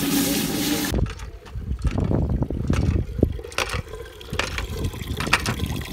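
Food sizzling in a cooking pot for about the first second. Then a hand pump is worked: irregular clanks and knocks of the handle and plunger, with water splashing out of the spout.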